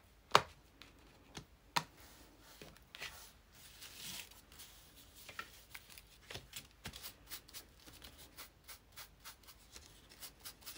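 Paper and craft supplies handled on a wooden table: paper sliding and rustling, with two sharp knocks in the first two seconds. From about six seconds in comes a run of light, quick taps.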